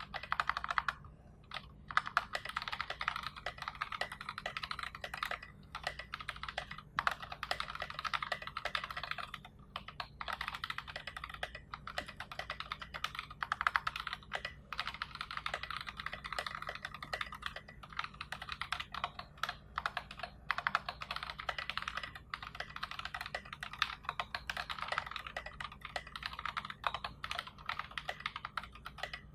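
Mechanical keyboard with NovelKeys Box Royal tactile switches, a 3 mm acrylic plate and SA keycaps, typed on quickly and steadily, key after key clacking, with a few short pauses.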